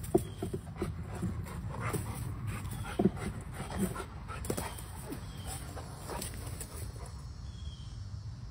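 A dog making short, irregular sounds close by, with two sharper, louder ones near the start and about three seconds in.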